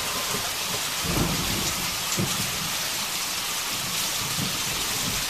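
Heavy rain pouring steadily, with thunder rumbling low beneath it.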